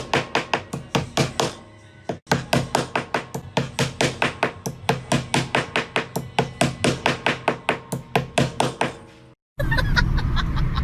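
Hammer rapidly tapping decorative tacks into the rim of a large drum, about five quick strikes a second, with a brief pause about two seconds in. The tapping cuts off near the end and a voice takes over.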